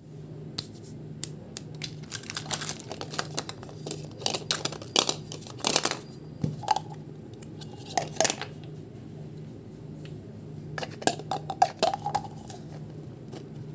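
Hard plastic clicking and tapping as an orange plastic surprise-egg capsule is handled and pried open, in scattered clusters of sharp clicks, over a steady low hum.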